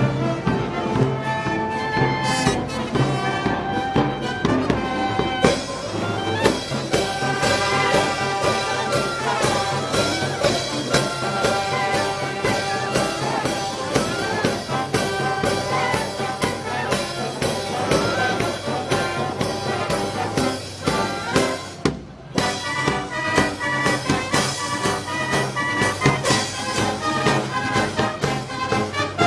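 Brass band music with trumpets and trombones; a steady percussion beat comes in about five seconds in, and the music drops out briefly about 22 seconds in.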